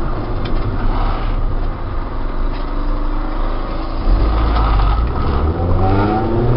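Swapped-in Honda B16A DOHC VTEC four-cylinder engine and road noise, heard from inside the cabin of a 1991 Civic Si hatchback while driving. Engine pitch rising from a little past halfway through as the car accelerates.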